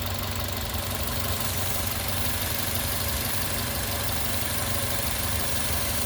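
Car engine idling steadily with a steady hiss over it, running with a deliberate vacuum leak opened through an adapter on the PCV hose, which drives the mixture lean.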